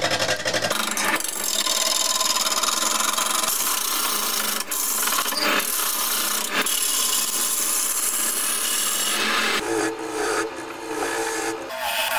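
Wood lathe turning a large wooden blank, a hand-held gouge cutting the spinning wood with a steady scraping hiss and a couple of brief breaks. In the last few seconds the cut changes and grows quieter, with a low hum underneath.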